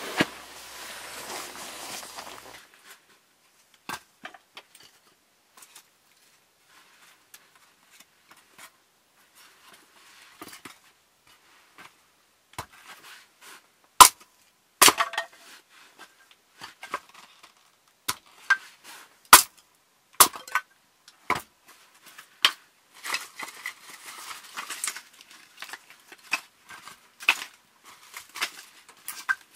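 Irregular sharp clicks and knocks, a few loud ones, spaced anywhere from a fraction of a second to a few seconds apart, with a rustling hiss in the first couple of seconds.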